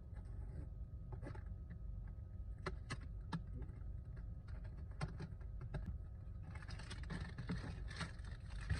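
Handling of small cardboard blind boxes: scattered light knocks and clicks, then rustling from about six and a half seconds in, over a steady low rumble.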